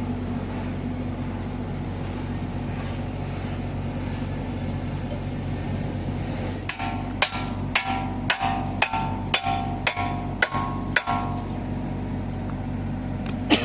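Kubota U50 mini excavator's diesel engine idling steadily. Past the middle, a hammer strikes steel about ten times in quick succession, each blow ringing, and two more blows come near the end.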